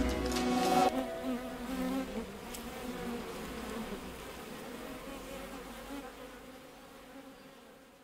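Bees buzzing, fading out steadily. The end of a music track is heard in the first second.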